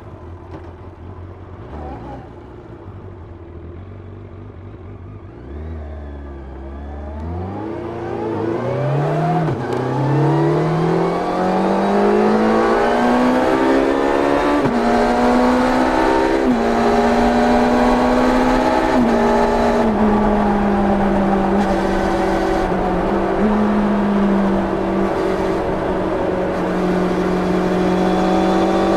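1990 Yamaha FZR 600's inline-four engine on its stock exhaust, heard from onboard. It runs low and quiet at first, then accelerates hard from about seven seconds in, its pitch climbing with short drops at each gear change, and settles into a steady pitch for the last third while wind noise builds.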